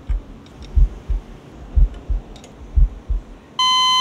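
Heartbeat sound effect, low lub-dub thumps about once a second, three beats. Near the end a heart monitor's steady flatline beep cuts in: the sign of a stopped heart.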